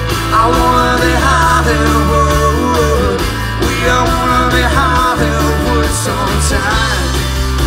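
A live rock band playing loud through a PA, heard from the crowd: electric guitars, bass and drums, with a melodic line bending over the steady beat.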